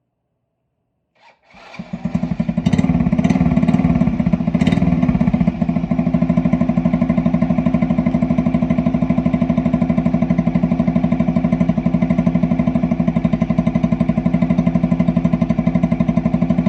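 Honda Magna 50's small single-cylinder four-stroke engine starting up, given a few blips of the throttle, then settling into a steady, evenly pulsing idle.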